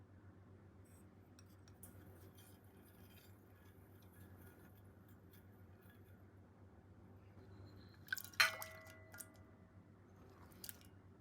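Faint kitchen handling sounds, then a single sharp clink of kitchenware about eight seconds in, ringing briefly.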